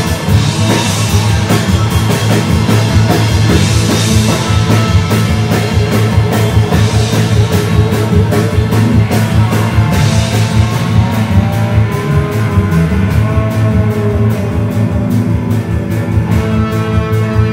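Live rock band playing an instrumental passage: electric guitar over bass and a driving drum kit, with cymbal crashes every few seconds in the first part.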